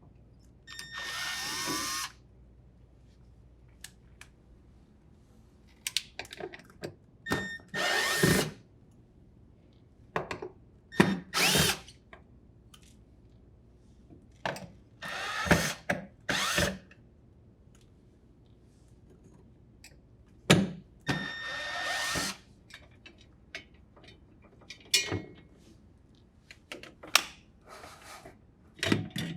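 Cordless drill driver run in a series of short bursts, its motor whine rising and falling as it backs out a Phillips screw and the four bolts holding a refrigerator freezer door's connector rail. Small clicks and clunks of the loosened fasteners and parts fall between the runs.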